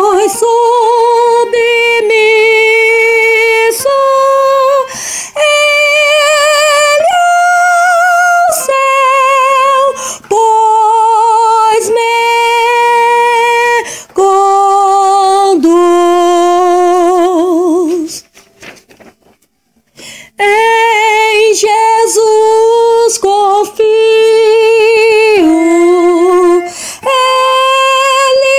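A female soprano voice sings the soprano line of a four-part hymn, holding each note with a steady vibrato. It stops for about two seconds around two-thirds of the way through, then begins again.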